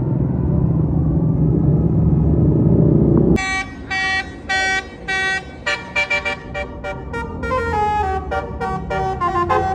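A low rumble, cut off abruptly about three seconds in, then a bus's Basuri 'telolet' multi-tone musical horn: a few separate blasts, then a quick melody of changing notes.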